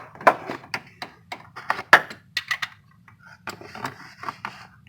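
Sharp metal clicks and clinks of a socket and ratchet being fitted onto the serpentine belt tensioner bolt: a dozen or so quick taps, loudest about two seconds in.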